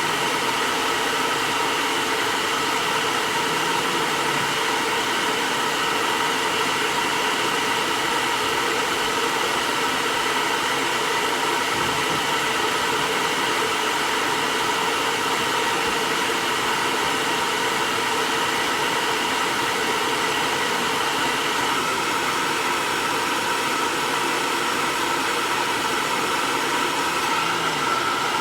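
Hair dryer running steadily: a constant blowing hiss with a few faint steady tones in it.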